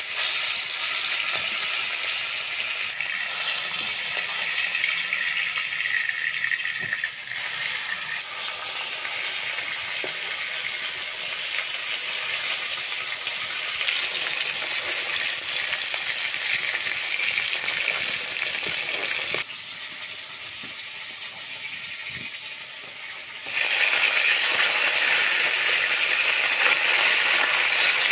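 Turmeric-coated fish pieces sizzling as they fry in hot oil in a wok, a steady crackling hiss. The level jumps up or down abruptly a few times, with a quieter stretch of a few seconds past the two-thirds mark.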